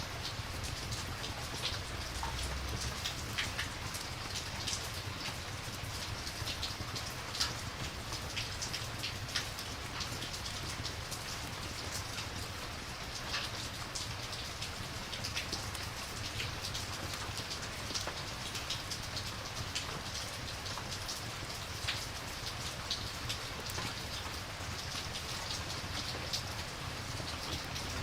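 Steady rain falling, with scattered short sharp ticks through it.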